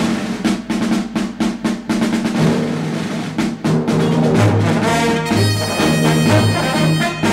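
Music with brass and drums: a run of rapid snare-drum strokes, then held brass notes coming in about halfway through.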